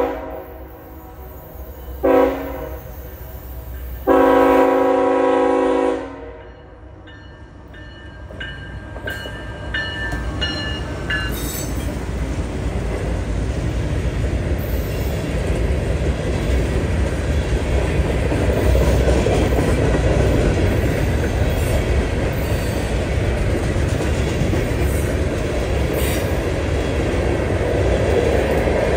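Freight locomotive air horn sounding a chord: the tail of one blast at the start, a short blast about two seconds in, then a long blast of about two seconds, the closing short-then-long of a grade-crossing signal. It is followed by the freight train rolling past, a steady rumble with clicking wheels that builds and then holds.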